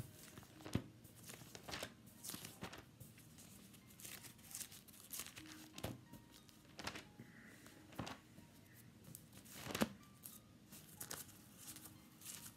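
Faint rustling and crinkling of thin Bible pages being turned while looking up a passage, coming as short, irregular rustles with soft taps.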